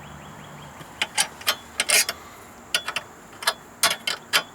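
Irregular metallic clicks and clinks of hand tools and sockets being handled while a 10 mm socket is searched for.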